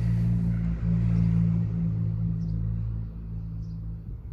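Car exhaust with a muffler delete droning: a steady low hum of several pitched lines, loudest over the first three seconds and then easing off a little.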